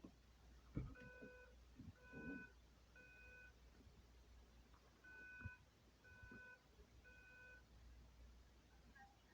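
Fire alarm speaker strobe sounding faintly in the temporal-three evacuation pattern: two sets of three short beeps, the second set starting about five seconds in. There are a few soft knocks among the beeps.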